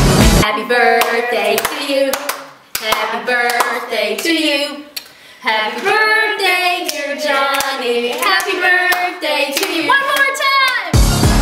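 Backing music cuts off about half a second in, and a few voices sing together unaccompanied, with scattered hand claps. Music comes back in just before the end.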